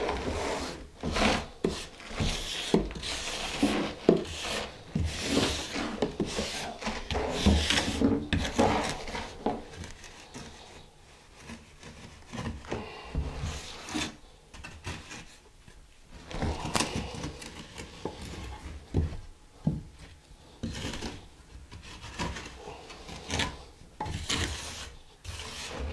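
Hand trowel scraping and smoothing damp sand-mix mortar (deck mud) on a shower pan bed, shaving down a high spot. It comes in repeated strokes, thick in the first ten seconds, then fewer and more spaced after a lull about halfway.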